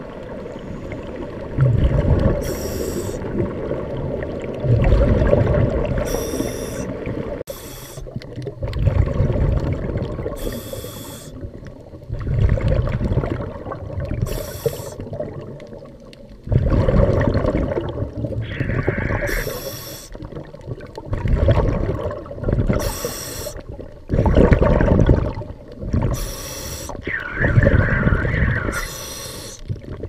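Scuba diver breathing through a regulator underwater: short hissing inhalations alternating with loud bubbling bursts of exhaled air, about one breath every three to four seconds.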